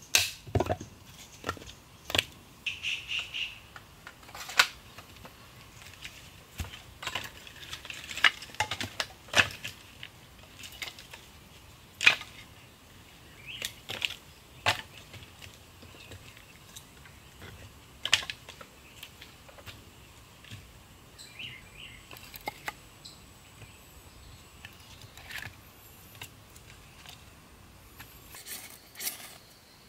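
Split firewood sticks clacking and knocking against each other as they are gathered and stacked into a fire lay, in irregular sharp knocks, with a couple of blade strikes splitting wood at the very start.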